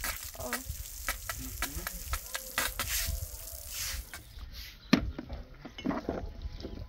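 Water from a garden hose splashing onto a concrete patio while a straw broom scrubs it, a steady hiss crossed by scratchy broom strokes. After about four seconds this gives way to a few sharp clinks of drinking glasses on a table.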